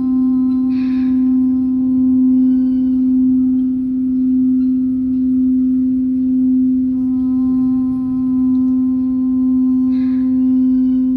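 Singing bowl ringing with one low, steady tone and its overtones, held without fading and wavering slowly in loudness. Two short sounds break in over it, about a second in and near the end.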